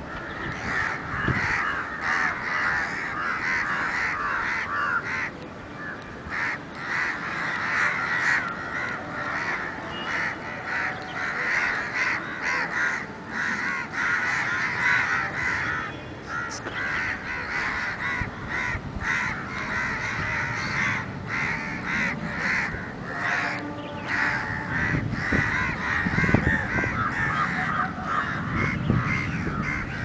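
A large flock of crows cawing, many calls overlapping into a continuous chorus.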